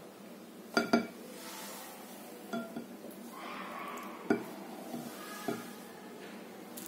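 A silicone spatula stirring and scraping a thick cream-and-yogurt mixture in a glass bowl, with about five sharp clinks and knocks against the glass, the loudest two close together about a second in.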